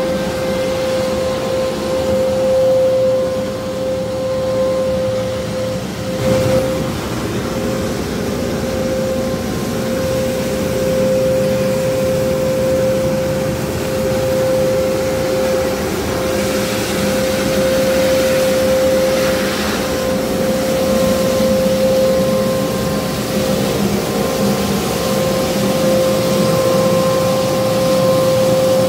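Johnston truck-mounted road sweeper at work, its engine running with a steady high whine and the noise of its brushes and suction, sweeping up a planed road surface.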